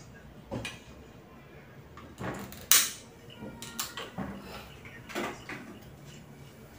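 Kitchen utensils being handled at a stainless-steel counter: a handful of short knocks and clatters, with one sharp, loud clack about three seconds in.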